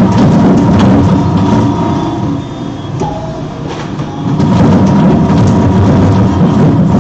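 Industrial twin-shaft shredder's rotating cutter discs grinding and crunching through plastic-packaged watches and pins, with sharp cracks as the packaging splits. The noise eases off for a couple of seconds as the load thins, then grows loud again about four and a half seconds in as fresh packets are pulled into the cutters.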